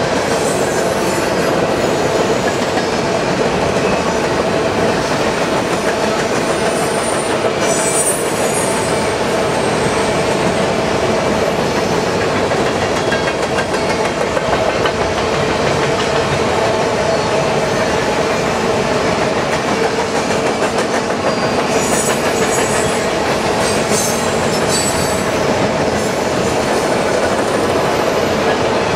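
Grain hopper cars of a freight train rolling steadily past, their wheels clacking over the rails. Brief high wheel squeals come about eight seconds in and again a few times near the end.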